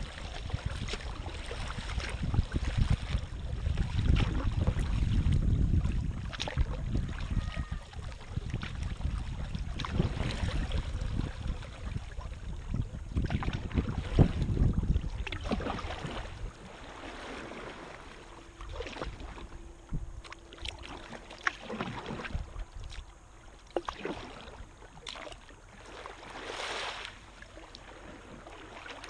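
Kayak paddling: paddle blades splashing in and dripping water stroke after stroke, over a low rumble. The rumble dies down about halfway through, leaving separate quieter splashes and drips.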